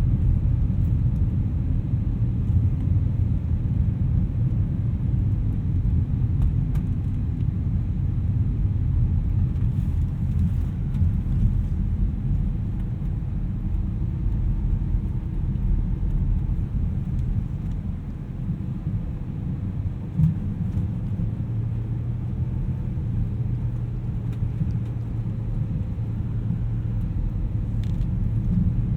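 BMW E92 M3's V8 running at low revs while driving on snow-covered road, a steady low rumble of engine and tyres.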